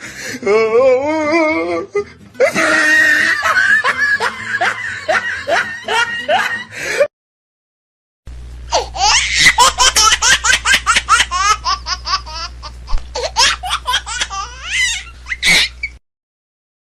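Two laughter sound effects in a row: about seven seconds of laughing, the first part in a wavering pitch, then a second of silence and a long run of rapid, high-pitched laughing over a steady low hum that stops abruptly near the end.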